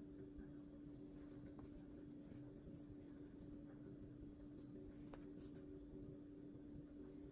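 Near silence: a steady low hum, with faint scratching and a couple of soft ticks.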